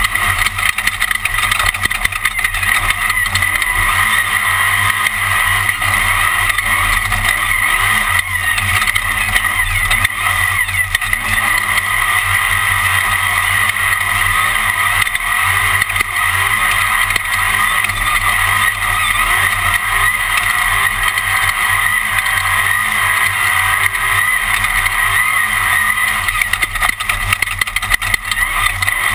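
Class 1 off-road desert race car driven at speed on a qualifying lap, heard from on board. The engine and the road and wind noise make a loud, steady din.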